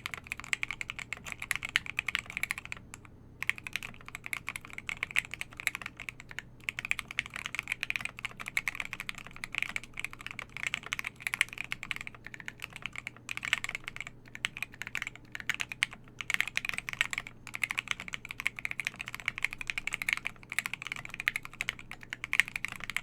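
Fast, continuous typing on a custom Devastating TKL mechanical keyboard with lubed Banana Split linear switches, an FR4 plate and KAT profile keycaps: a dense run of clacky keystrokes with a couple of brief pauses.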